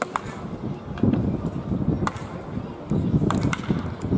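Sharp cracks of baseball bats hitting balls during tee batting: one right at the start, one about two seconds in, and a quick run of three a little after three seconds in, over a loud low background rumble that comes and goes.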